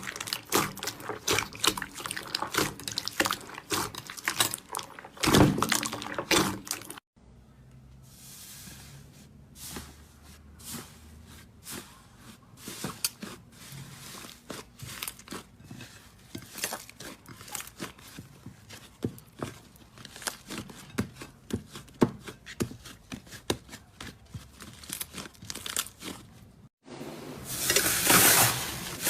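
Slime being squeezed, poked and stretched by hand: a close, dense run of small sticky clicks, crackles and pops. It stops abruptly twice, about 7 s and 27 s in, and the last part is louder and crisper.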